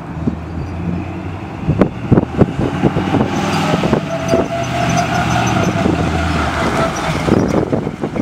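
Small-block Chevy V8 of a street-rodded 1929 Ford Model A pickup running as the truck drives past. Several sharp loud knocks or pops come about two seconds in.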